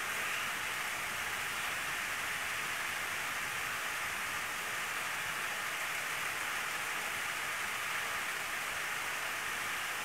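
Steady, even hiss of background noise with nothing else standing out.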